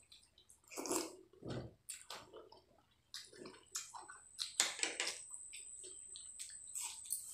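Close-miked slurping and wet chewing of spicy Maggi instant noodles, in irregular bursts with short pauses between mouthfuls.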